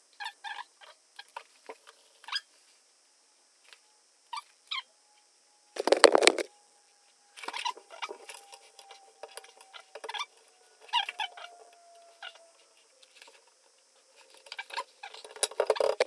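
Light plastic clicks, taps and rustles as an adhesive baby cabinet lock is fitted and a cabinet door is worked against it, with one louder knock about six seconds in.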